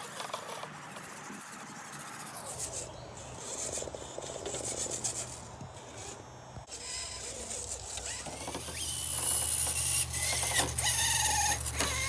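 Electric motors and geartrains of radio-controlled scale rock crawlers whining, the pitch rising and falling with the throttle, louder in the second half.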